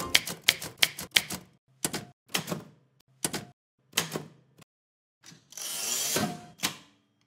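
Typewriter keys striking: a fast run of clacks in the first second or so, then single strikes about half a second apart. A longer rasping sweep comes near the end, and then one last strike.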